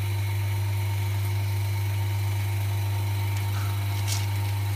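Vacuum pump of an LCD alignment and laminating machine running with a steady low hum and hiss.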